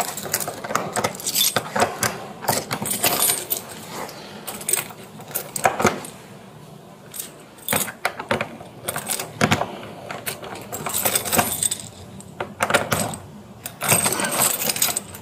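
A ring of keys jangling and clicking in irregular bursts as a key is worked in a wall-mounted Medeco key switch to unlock a holding cell door. There is a quieter lull about halfway through.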